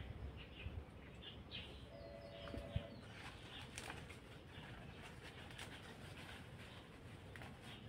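Birds calling in the background, with a short steady call about two seconds in and faint higher chirps, over scattered light clicks and rustles of leaves and vines being handled.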